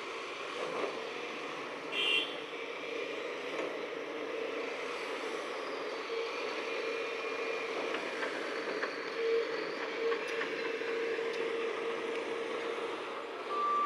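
Heavy construction machinery running steadily, a continuous engine drone with a steady whine, and a brief clank about two seconds in.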